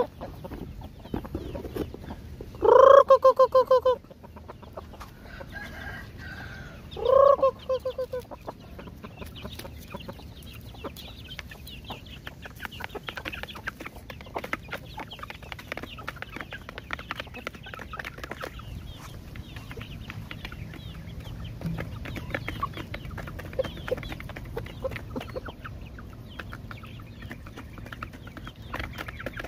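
Domestic chickens clucking. Two loud, drawn-out calls come about three and seven seconds in, followed by a long stretch of busy, overlapping clucks and small sounds from the flock.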